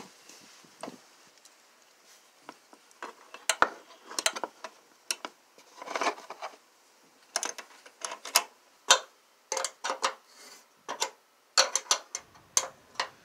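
Irregular metallic clicks and clinks of a ratcheting wrench and a combination wrench turning a homemade setting tool of bolt, nut and washers, setting a plus nut (cross nut) in van sheet metal.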